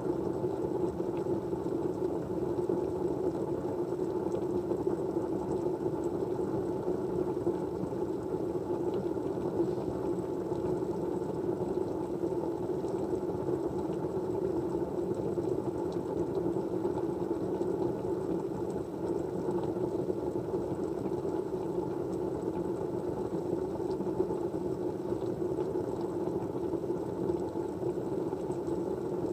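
Steady white-noise ambience: an even, low rushing sound that does not change, with a few faint scattered ticks.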